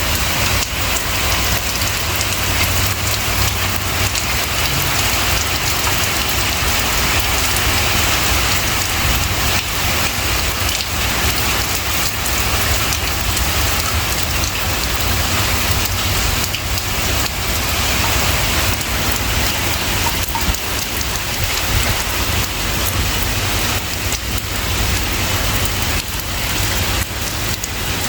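Steady rain falling, a dense, even rush of drops that neither builds nor eases.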